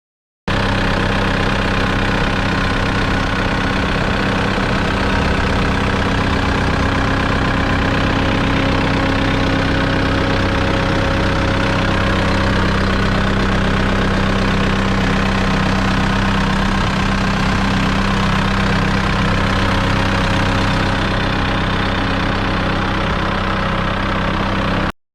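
The 4-cylinder turbo diesel engine of a CAT 257D tracked skid steer loader running steadily at a constant speed, with no revving.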